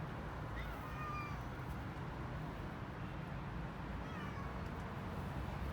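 Stray cats meowing, two short meows about a second in and about four seconds in, over steady low street noise.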